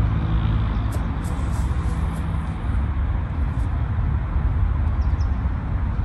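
Steady low rumble of background noise with a few faint rustles about a second or two in.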